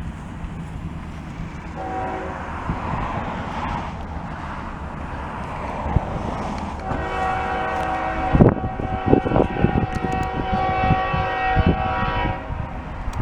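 A CSX GE ES44AH diesel locomotive's air horn gives a short blast about two seconds in, then a long multi-tone blast from about seven seconds until shortly before the end. A low rumble runs underneath, and sharp thumps come through the second half.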